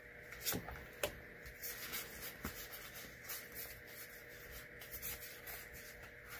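Magic: The Gathering trading cards handled by hand, faint soft clicks and rustles of card stock sliding and being flipped over, with two sharper ticks in the first second or so. A faint steady hum runs underneath.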